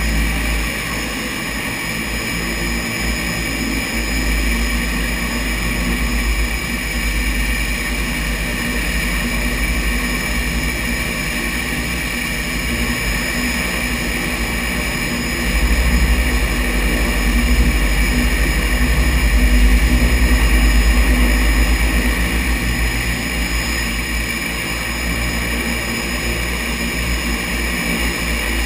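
Floatplane engines and propellers running steadily as the plane taxis on the water, with a high steady whine over a low rumble. The engine sound grows louder about halfway through.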